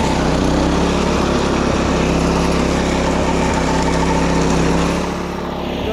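Small engine of a wing mower (walk-behind levee mower) running steadily while mowing, with a slight drop in level about five seconds in.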